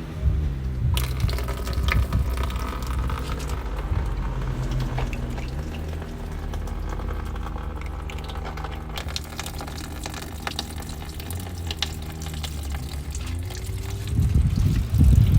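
Honda CBR1000RR inline-four engine running at a steady idle, with a watery, hissing mechanical noise over its even low hum; this is the abnormal engine noise whose cause is being traced, with the water pump the next suspect. It grows louder and rougher near the end.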